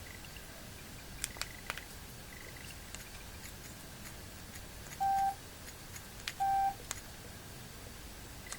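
Nokia 5230 mobile phone giving two short single-pitch beeps about a second and a half apart, with a few light clicks of fingers tapping the touchscreen as it is tested.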